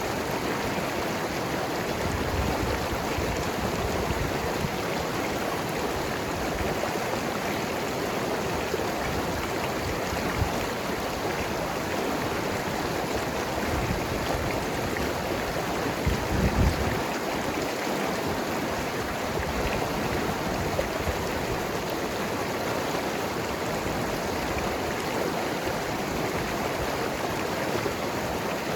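Mountain river rushing and gurgling over rocks, a steady rush of water. About two-thirds of the way through, a few brief low thumps rise above it.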